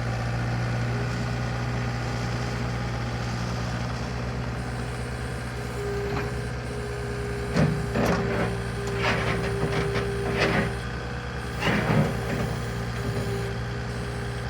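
2008 Bobcat T320 skid steer's diesel engine running steadily. About six seconds in, a steady whine joins it, and between about seven and a half and twelve seconds there is a series of sharp knocks and clanks.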